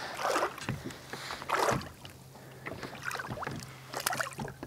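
Water splashing in a few short bursts beside a kayak, the loudest about a second and a half in, as a small, feisty largemouth bass thrashes at the surface while being handled and let go.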